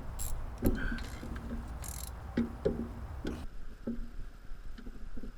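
Ratchet and 13 mm socket working the tight front brake caliper bolts: a series of separate clicks and metallic knocks, some with a short ring.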